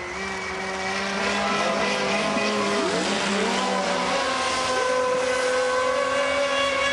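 Radio-controlled model racing boats running at speed, their motors making several overlapping steady tones at different pitches, some dipping and rising as the boats turn and throttle.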